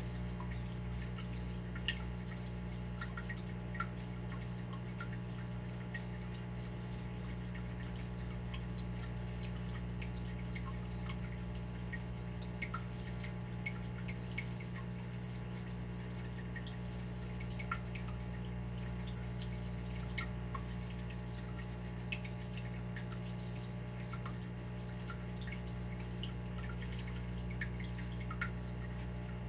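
Water dripping in irregular single drops, a tick every second or so, over a steady low hum.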